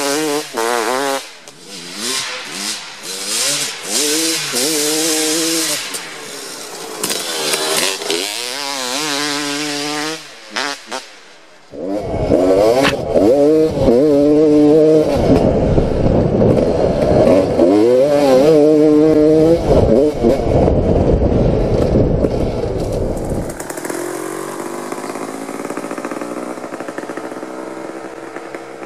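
2003 Kawasaki KX250's single-cylinder two-stroke engine, fitted with an FMF Gnarly pipe and Pro Circuit Shorty 304 silencer, revving hard, its pitch climbing and dropping again and again. In the middle stretch, heard from on the bike, heavy wind rumble sits under the engine; near the end the engine holds a steadier, fainter tone.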